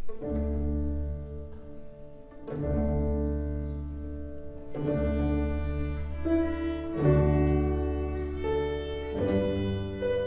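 String orchestra of violins, cellos and double basses playing a slow piece. It comes in a moment after the start with long held low chords that change about every two seconds, and the violins carry a melody above them.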